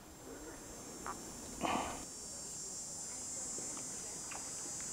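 Insects chirring steadily at a high pitch. A few faint clicks and one brief scraping sound, about a second and a half in, come from the eel being skinned with tweezers.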